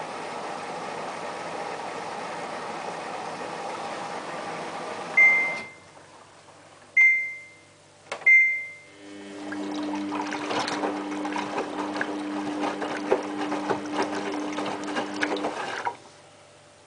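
Samsung WF8804RPA front-loading washing machine: a steady rush of running water, then three short high beeps from the control panel, then a whirring mechanical hum with scattered clicks as the machine works. The hum cuts off near the end.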